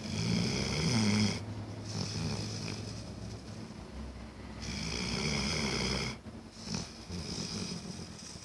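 Snoring in slow, deep breaths, with two long, louder snores: one at the start and one about five seconds in.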